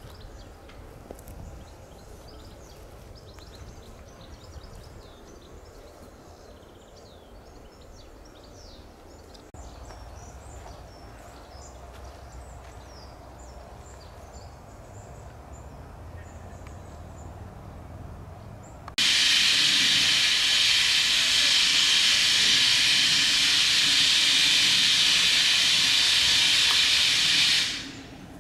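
Steam locomotive venting steam: a loud, steady hiss that starts suddenly about two-thirds of the way in and dies away after about eight seconds. Before it, faint birdsong over a low rumble.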